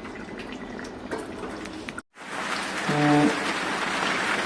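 A steady hiss with scattered light crackles, like rain or something simmering. About two seconds in it cuts out abruptly and comes back louder and brighter, with a brief hummed voice in the middle.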